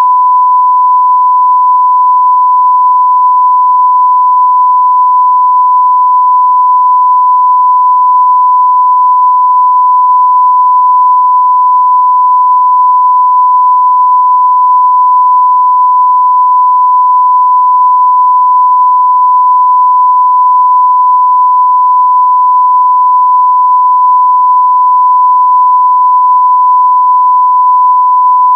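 A single steady 1 kHz sine-wave tone: the censor bleep, held continuously and loud at one pitch.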